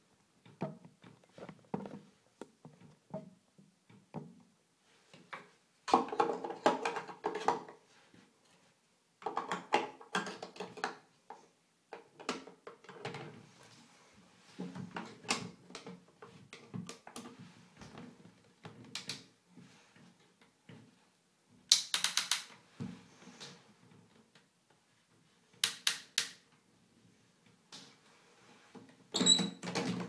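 Two toy Miele washing machines running, with irregular clicks and knocks and several short bursts of whirring, the longest about six and nine seconds in.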